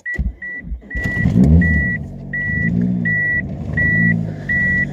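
1992 Plymouth Laser's 4G63 four-cylinder engine catching about a second in and running, its speed rising and falling, while the car's warning chime beeps steadily about once every 0.7 seconds. The engine has been running lean with random misfires, which the owner puts down to clogged fuel injectors.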